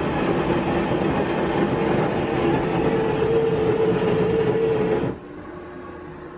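Touchscreen coffee vending machine working through its brew cycle after Start is pressed: a loud, steady mechanical whirr with a steady hum under it, cutting off suddenly about five seconds in as the cup is finished.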